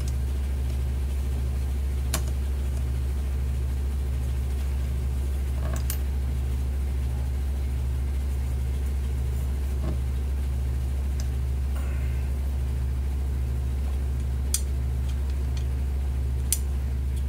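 A steady low hum with a slow, even throb, under a few sharp clicks and taps as the parts of a pistol crossbow are handled and fitted.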